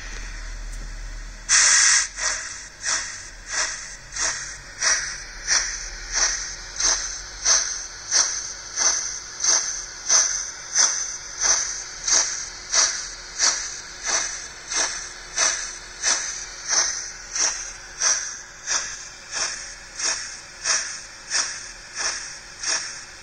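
Model steam locomotive's DCC sound decoder playing steam exhaust chuffs through its small onboard speaker, with the engine turning on a roller test stand. After a soft hiss, a loud first chuff comes about one and a half seconds in. The chuffs then settle into a steady beat of about three every two seconds.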